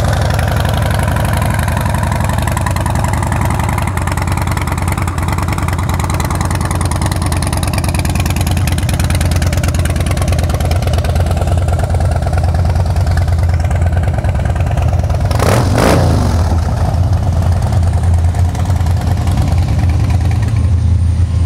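2009 Harley-Davidson Dyna Street Bob's 96-cubic-inch Twin Cam V-twin idling steadily through its Vance & Hines aftermarket exhaust, with one brief louder burst about two-thirds of the way through.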